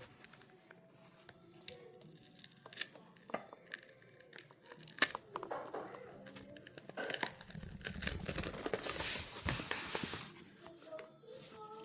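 Tearing and crinkling, preceded by scattered small clicks, loudest from about seven to ten seconds in.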